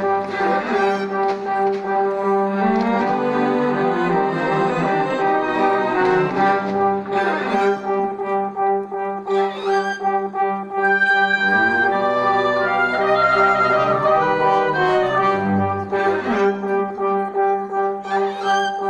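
Orchestral music with brass holding long sustained chords over a steady held note, strings around it.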